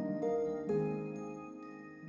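Soft, slow instrumental background music: struck notes that start sharply and ring out, a new one about every half second.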